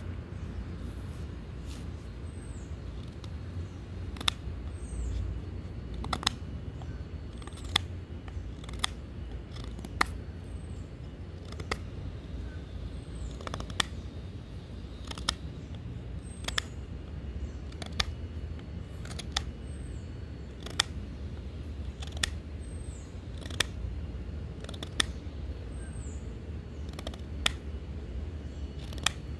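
A folding knife's sheepsfoot blade making repeated cutting strokes, a short sharp snick roughly every second and a half, over a steady low background rumble.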